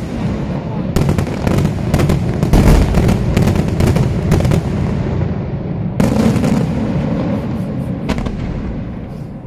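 Daytime aerial fireworks: rapid volleys of loud shell reports with a rolling, echoing rumble between them. The bangs come thick and fast for the first few seconds, another heavy burst comes about six seconds in and one more near eight, then the rumble dies away.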